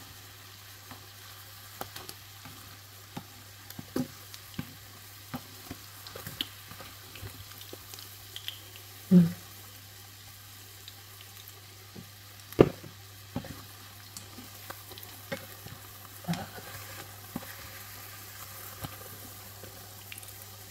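Small battered shrimp fritters frying in oil: a steady soft sizzle dotted with little pops and crackles. A few sharp knocks sound over it, the loudest about twelve and a half seconds in.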